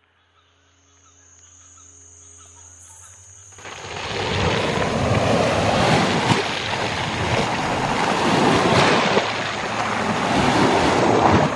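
Small waves breaking and washing over a shingle beach, surging and easing every couple of seconds. It sets in suddenly about three and a half seconds in, after a few seconds of faint steady low tones.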